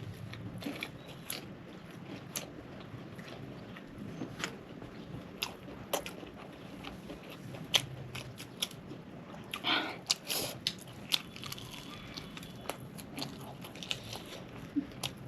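Close-miked crunching and chewing of KFC fried chicken, the crisp breading crackling in sharp bites. A louder run of crunches comes about ten seconds in.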